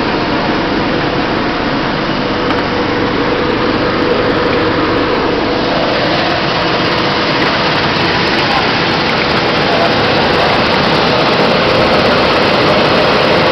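Quinoa seed-cleaning machine and gravity separator running, with quinoa streaming through it. The machine gives a loud, steady rushing noise with a faint steady hum.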